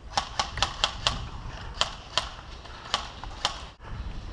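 Airsoft gunfire: about nine sharp single cracks at uneven intervals, several close together in the first second, then more spread out.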